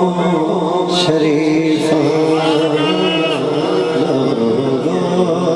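Male voice singing a devotional Punjabi kalam in long, drawn-out melodic lines, with a steady low tone held beneath the voice.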